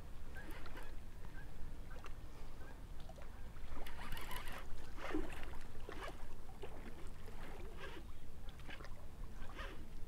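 Water sloshing and splashing at a rocky bank, with irregular soft clicks and knocks from a baitcasting reel being cranked against a heavy hooked blue catfish. The splashing picks up about four seconds in.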